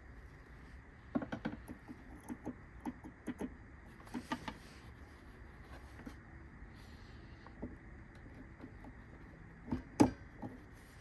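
Light clicks and taps of small plastic parts being handled and fitted, a cluster of them at first, then a few scattered ones. A sharper knock comes near the end.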